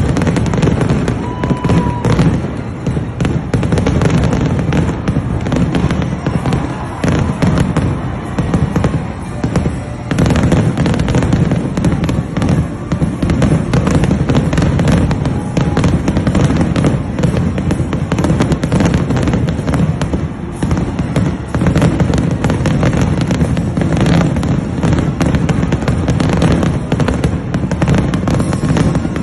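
Fireworks display: a dense, unbroken barrage of bursts and crackling.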